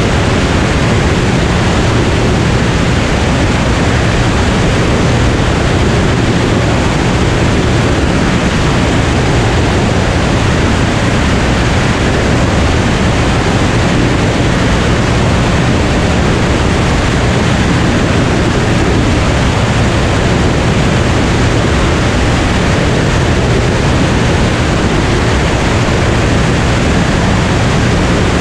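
Cirrus SR22 single-engine propeller plane in cruise flight: a steady, loud rush of airflow over the engine's low drone.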